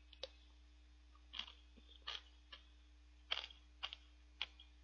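A person chewing a mouthful of shaved ice: about half a dozen faint, short crunching mouth sounds spaced irregularly across a few seconds.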